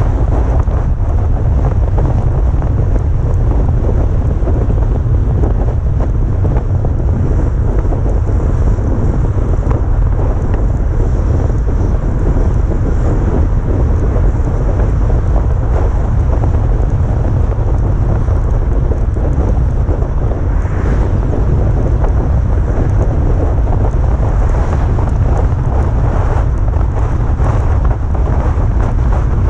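Steady, loud low rumble of wind buffeting the microphone, with a constant noisy hiss over it.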